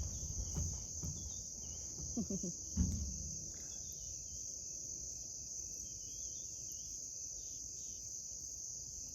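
Night chorus of crickets, a steady high trilling throughout. A couple of low knocks come about two and three seconds in.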